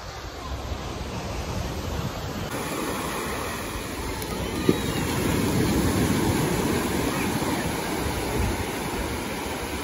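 Ocean surf breaking and washing up a sandy beach, a steady rushing that swells toward the middle and eases near the end, with a low rumble beneath it. A single brief click sounds about halfway through.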